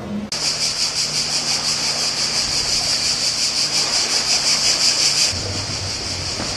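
Cicadas buzzing in a dense chorus with a very rapid pulse, starting suddenly a moment in and dropping in level about five seconds in, over a low steady hum.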